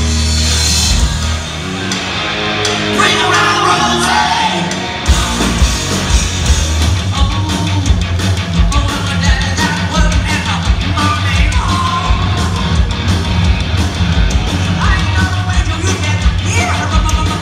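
Live hard rock band playing with a lead singer, electric guitars, bass and drums. A lighter stretch with the singing voice gives way about five seconds in to the full band with a steady, hard-hitting drum beat.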